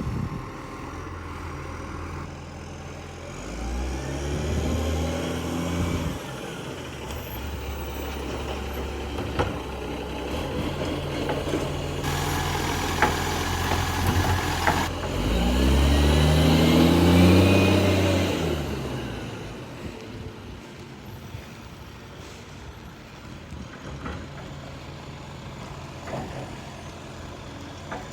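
Garbage truck's diesel engine running, revving up and dropping back twice, louder the second time, with a few seconds of air hiss about halfway through.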